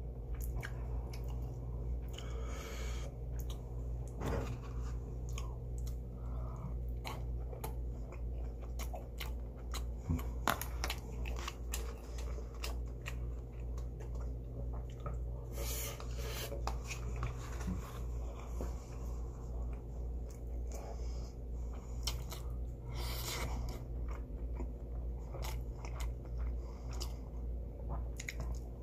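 Close-miked chewing of marinated pork ribs (dwaeji galbi), with frequent short smacks and clicks, over a steady low hum.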